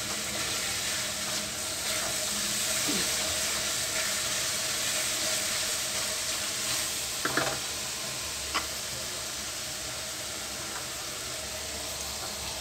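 Tomato masala sizzling in hot oil in a black iron karahi while a silicone spatula stirs it, with two brief knocks against the pan a little past the middle. The masala is being fried until the oil separates.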